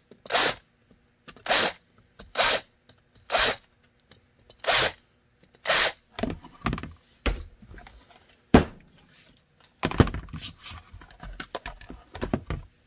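Hand deburring tool scraping the edges of freshly drilled holes in a plastic holster shell, one short rasping stroke about once a second. Later come a single sharp click and then a run of clicks and knocks as the plastic pieces are handled.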